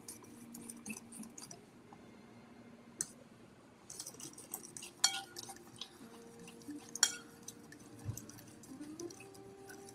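A spoon stirring thick chocolate ganache in a ceramic bowl: soft scraping with scattered light clinks against the bowl. It goes quiet for a couple of seconds early on, then gives sharper clinks about five and seven seconds in.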